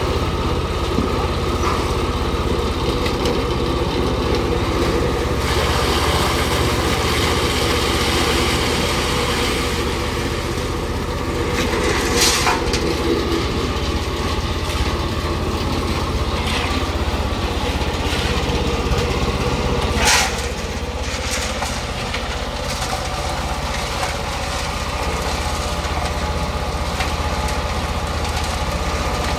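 A motor running steadily with a deep hum, broken by two sharp knocks, about twelve seconds in and again near twenty seconds.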